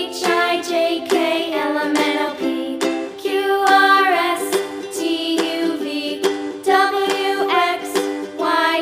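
Background music for children: a bright, plucked ukulele-style tune with singing-like melody lines over it.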